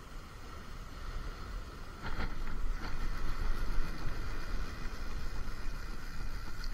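Wind buffeting the microphone as a steady low rumble, growing louder about two seconds in, with a few brief rustles or knocks soon after.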